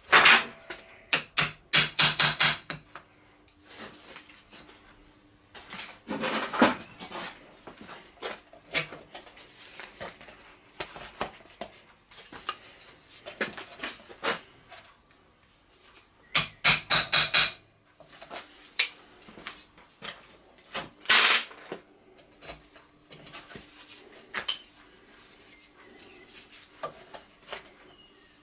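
Small hammer tapping a homemade round-ended steel rod to cut bolt holes in gasket jointing material against the iron casting beneath. The taps come in quick bursts of sharp metallic knocks with short pauses between, and lighter scattered taps in the gaps.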